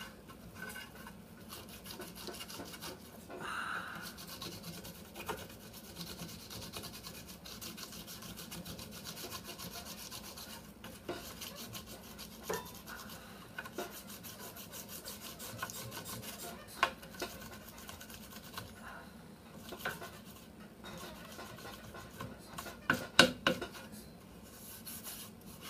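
A rubber sanding-belt cleaning stick scrubbed back and forth over Baltic birch plywood, rubbing off leftover pattern glue: a steady dry scrubbing, with a few sharp knocks a little before the end.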